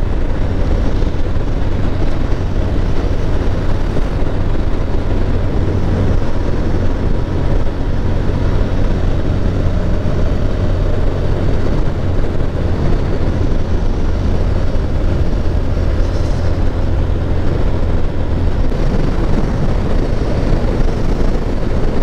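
Motorcycle riding at steady speed, heard from a helmet-mounted camera: a steady low engine hum under heavy wind rush. The low hum fades a few seconds before the end.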